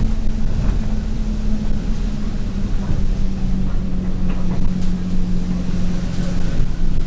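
Alexander Dennis Enviro200 single-decker bus under way, heard from inside: steady low engine and road rumble with a droning tone that slowly drops in pitch, and a few light rattles.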